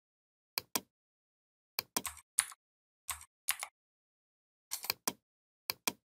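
Computer mouse and keyboard clicks: sharp press-and-release clicks, mostly in close pairs, several times over, with dead silence between them.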